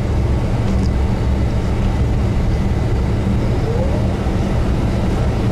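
Tour bus engine and road noise heard inside the cabin: a steady low drone.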